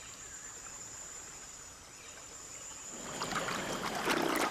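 Rainforest ambience with a steady high insect whine, then from about three seconds in a louder burst of water sloshing and splashing with small knocks.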